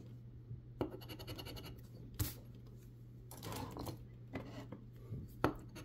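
A metal scratcher coin scraping the latex coating off a scratch-off lottery ticket: several short scratches about a second apart, over a low steady hum.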